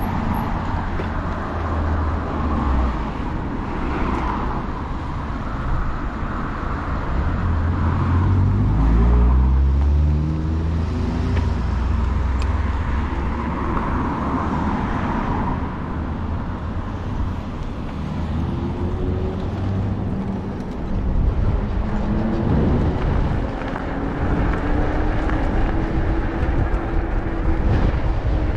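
E-bike ride: a steady low rumble and road noise, with a motor whine that rises in pitch about a third of the way in and again, more gradually, near the end as the bike speeds up.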